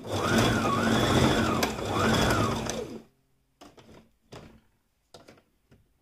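Electric household sewing machine running a straight stitch, stopping abruptly about three seconds in. A few faint clicks and rustles follow.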